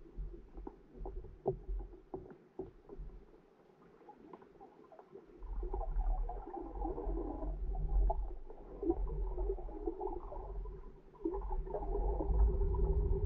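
Muffled underwater sound picked up by a camera below the surface: low rumbling water movement with a steady hum, scattered small knocks in the first few seconds, and louder churning from about five seconds in.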